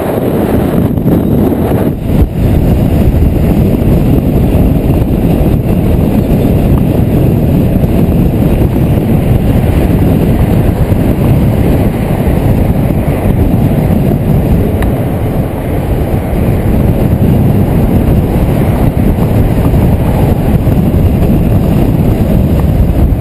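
Loud wind rumble and road noise on a camera mounted outside a moving car, steady throughout.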